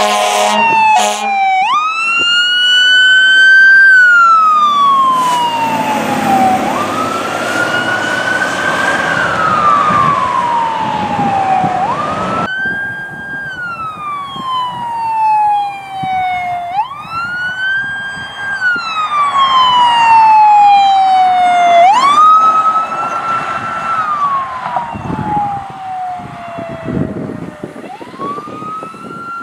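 A fire engine's horn sounds briefly and stops about a second in. Then its siren wails, each cycle rising quickly, holding and falling slowly, about every five seconds. Partway through, the sound cuts to another emergency vehicle's siren wailing the same way.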